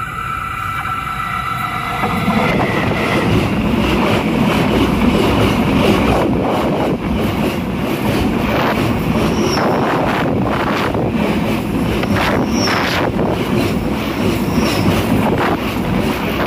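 A train passing directly over the microphone placed between the rails: a loud, dense rumble with wheels clattering on the rails, building up over the first few seconds. Three brief high squeals come in the second half.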